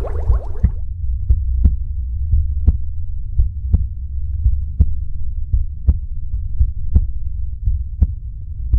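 Heartbeat sound effect: paired thuds about once a second over a low steady hum. A rushing hiss fades out in the first second.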